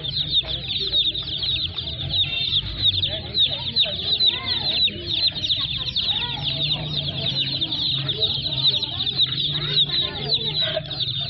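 A large crowd of baby chicks peeping nonstop, many short, high, downward chirps overlapping into one dense chorus.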